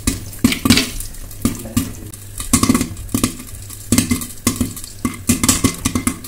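Corn kernels popping in hot oil in a kadai under a glass lid: irregular sharp pops, several a second, the popping in full swing.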